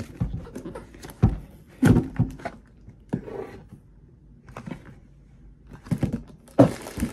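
Cardboard box being handled and opened: a scattering of short knocks and thumps as the lid is pulled off and the box is moved about, with a brief rustle near the end.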